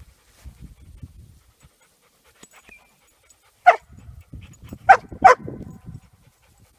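Dog barking three short, sharp times, about halfway through, the last two close together, with soft panting around the barks.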